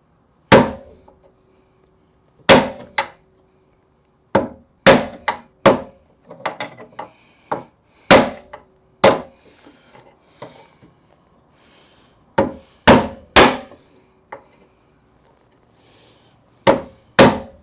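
Hammer blows driving a Jeep XJ door hinge pin into its bushing: a dozen or so irregular metal strikes, some in quick pairs, with a faint ring after several. The pin is stuck and won't go in.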